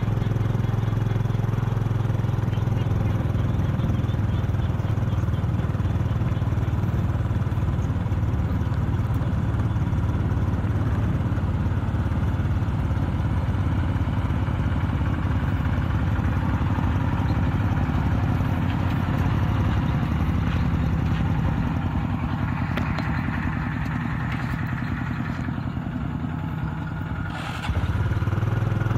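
Kubota RT-120 Plus single-cylinder diesel engine of a two-wheel farm tractor running steadily under way, heard from on the moving tractor. The engine note eases somewhat about three quarters of the way through, then comes back at full strength just before the end.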